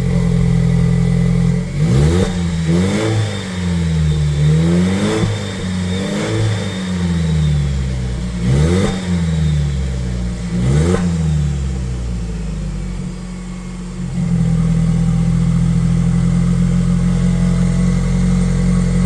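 A 2025 Toyota Tacoma's turbocharged four-cylinder engine through a short trail exhaust with the resonator removed, dumping right after the muffler: it idles, is revved in about six quick blips that rise and fall, then settles back to a steady idle. The owner hears it as a little louder with a little more bass than stock.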